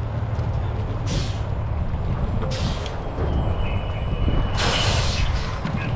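Heavy diesel fire apparatus running with a steady low rumble, with three short hisses of released air from its air system, the last one the longest and loudest.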